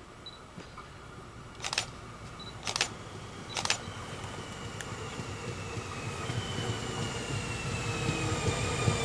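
Electric multiple unit, a Hessische Landesbahn Alstom Coradia Stream, approaching and growing steadily louder. From about halfway through, its drive whine falls in pitch as it slows into the station. Early on come three short, sharp clacks about a second apart.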